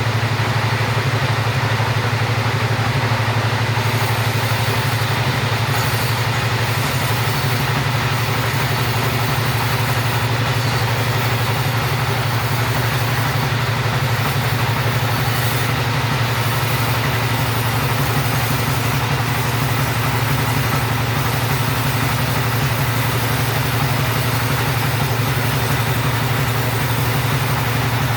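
Chainsaw running at a steady, even speed for a long stretch, as when ripping a log into timber, with a strong low hum and no rise or fall in revs.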